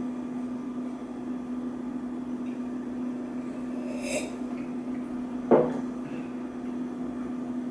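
A short slurping sip from a glass of iced coffee about four seconds in, then the glass set down on the table with a single knock, over a steady low hum.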